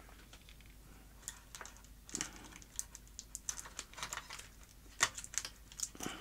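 Scattered light clicks and small knocks as a monitor's power-supply circuit board and its sheet-metal chassis are handled and lifted apart by hand, with small parts set down on the bench mat. The sharpest click comes about five seconds in.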